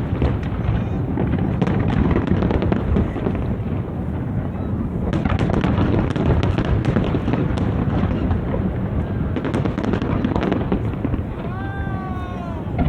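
Large aerial fireworks exploding in a dense, continuous run of bangs and crackles over a steady low rumble. Near the end a single rising-and-falling voice cries out.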